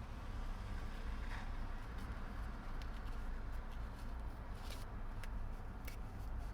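Faint, irregular clicks and rustles of a plastic fashion doll and its clothes being handled, over a steady low hum.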